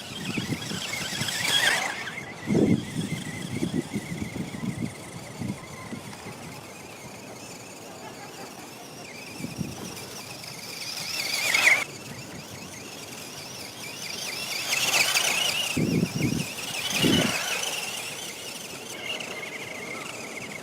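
Small electric motor of a 1:24-scale 4WD RC buggy whining at high pitch as the car drives about, swelling louder several times as it speeds up or passes close. Low knocks come in a few seconds in and again near the end.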